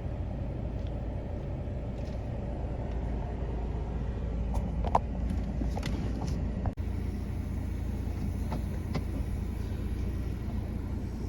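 Vehicle driving slowly across a pasture, heard from inside the cab: a steady low engine and road rumble with a few light knocks and rattles, the sharpest about five seconds in.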